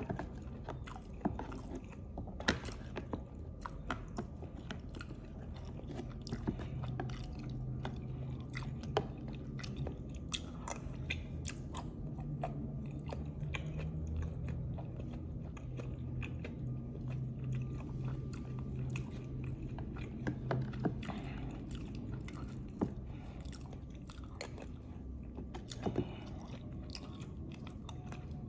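Close-miked chewing and biting of lontong (rice cake) with green chili, with frequent sharp wet mouth clicks and smacks.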